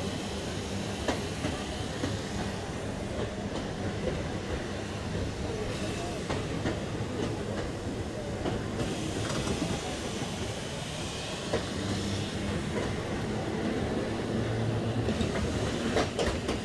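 Vintage electric tram running along its track, with a steady low hum from the motors and occasional sharp clicks as the wheels pass over rail joints.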